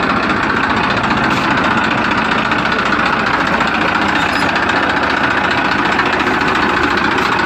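An engine running steadily at idle, with a fast, even pulsing that does not change.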